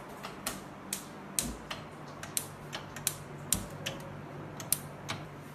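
Gas hob's spark igniter clicking in quick, uneven ticks, two or three a second, as the knobs are turned and the burners light.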